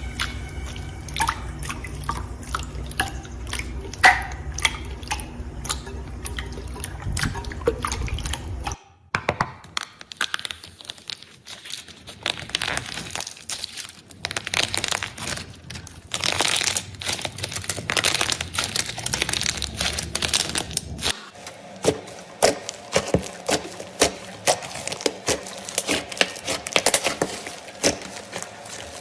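Slime being squeezed, poked and stretched by hand: a stream of sticky clicks, wet squelches and small pops. It changes character twice, about 9 and 21 seconds in.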